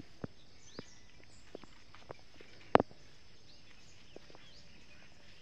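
Scattered light clicks and knocks, with one sharper knock almost three seconds in, as a bamboo fish trap is picked up and handled. Small birds chirp faintly in the background.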